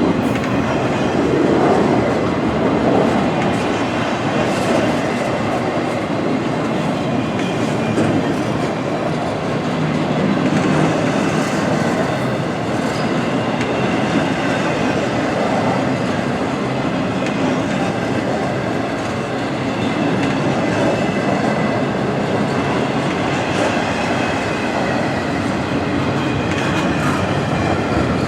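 Freight train rolling past, its steel wheels clicking steadily over the rail joints, with a faint high squeal from the wheels.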